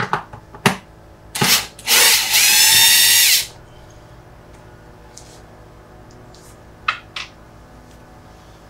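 Electric drill-driver running for about a second and a half to back out a screw, with a few short clicks and knocks from handling the tool and parts before and after.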